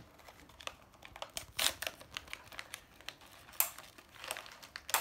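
Plastic toy packaging crinkling as it is worked open, in irregular sharp crackles, the loudest about a second and a half in and again about three and a half seconds in.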